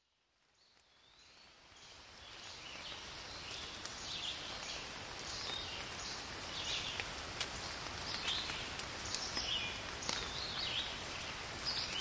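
Rain falling on still water, fading in over the first two seconds, with individual drops ticking, while birds repeatedly give short high calls.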